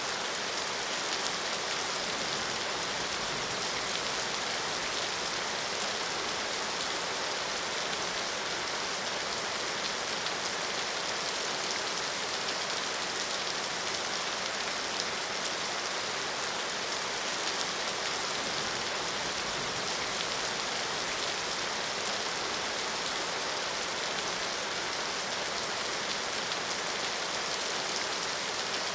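Steady rain falling, an even hiss of many drops pattering on surfaces, unchanging throughout.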